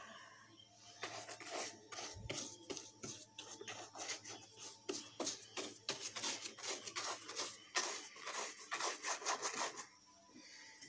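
Stiff paintbrush scrubbing and stippling glue onto rough model-railway scenery in quick scratchy strokes, starting about a second in and stopping near the end.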